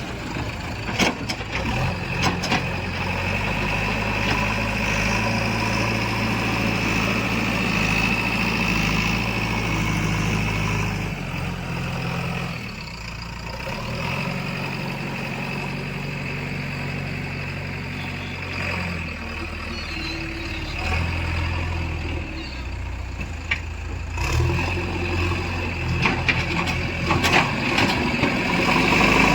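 Heavy diesel machinery running steadily. The engine note shifts up and down a couple of times as the machine works, with a few sharp clanks near the start and toward the end.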